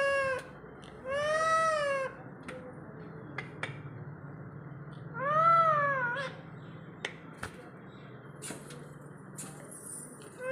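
Pet green parakeet with a red beak calling three times: long clear calls that rise then fall in pitch, the third, around the middle, ending in a wavering tail. A few short ticks follow in the second half.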